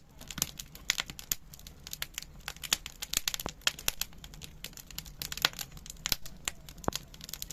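Wood fire crackling in a fireplace: irregular sharp pops and snaps, several a second and uneven in strength, over a low steady rumble.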